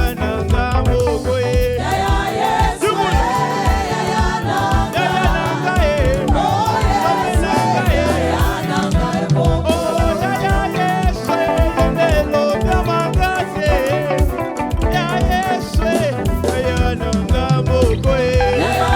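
Live upbeat gospel praise music with a band's drums and bass keeping a fast dance beat under melodic singing or lead lines.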